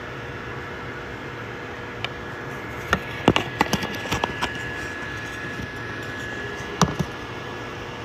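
Steady fan and motor hum of 3D printers running a print, with a thin steady whine setting in about three seconds in. A quick run of small clicks and taps comes about three seconds in, and one more near the end.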